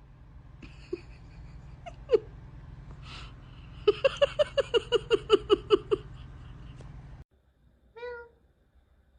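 A cat making a rapid run of about a dozen short, clipped calls, around six a second, after a sharp click about two seconds in. A single short meow follows near the end.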